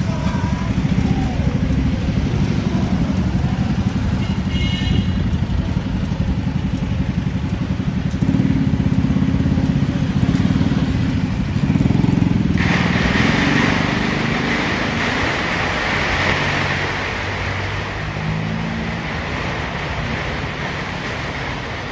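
Motor scooter and pickup truck engines running as a line of vehicles drives slowly past. About halfway through a steady hiss comes in suddenly over the engine sound.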